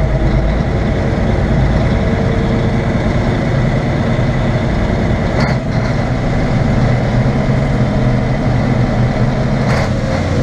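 Mack B61 dump truck's engine running steadily at idle, with two brief clicks, one about halfway through and one near the end.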